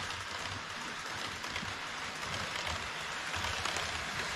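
HO-scale model E5 series shinkansen rolling along KATO Unitrack on an elevated viaduct: a steady rolling hiss with low rumbling, growing slightly louder near the end as the train approaches.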